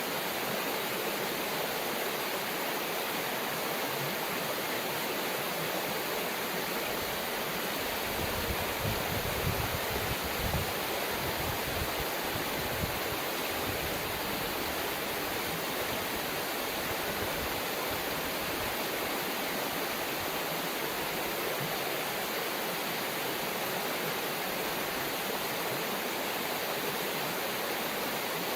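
River water flowing, a steady rushing hiss. Between about 8 and 11 seconds in, a low rumble swells up under it a few times.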